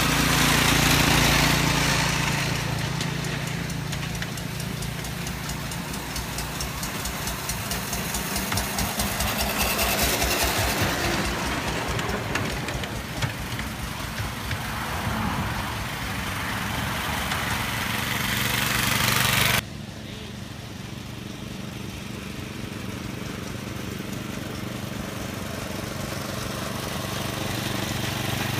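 Small engine of a ride-on miniature railway locomotive running as it passes on the track, loudest at first, with a steady note like a small lawn-mower engine. The sound drops abruptly about two-thirds in and carries on quieter.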